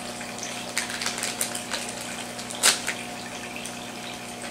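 Toy package being handled and opened: light crinkles and rustles, with one louder crackle a little over halfway through, over a steady background hiss and hum.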